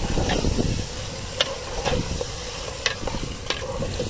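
A metal spoon stirring chicken pieces through masala in an aluminium pot, with sharp clinks and scrapes against the pot roughly every half-second to second, over a steady sizzle and a low rumbling noise underneath.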